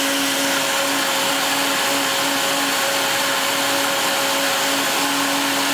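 Breville high-speed blender running steadily at speed, pureeing peaches and orange juice until smooth: a constant whir with an even hum underneath.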